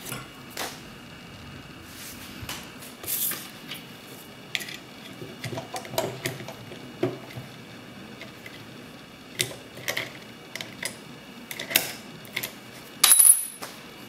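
Scattered metal clicks, taps and clinks from a Sargent & Greenleaf lever mailbox lock clamped in a bench vise and the tools working at it. A louder, ringing metallic clatter comes about a second before the end.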